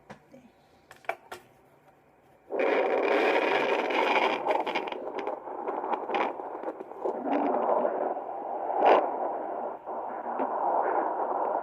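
Hi-Bebe handheld fetal Doppler: after a couple of faint clicks, its speaker starts loud hissing static about two and a half seconds in, with scraping as the probe is pressed and moved over the gel on the belly. It has not yet locked onto a heartbeat.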